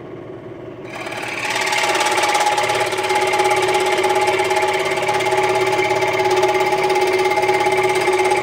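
Central Machinery 16-inch scroll saw running near full speed, its reciprocating blade cutting a curve in quarter-inch MDF: a steady mechanical hum with a hissing rasp from the cut, growing louder about a second in and holding steady after.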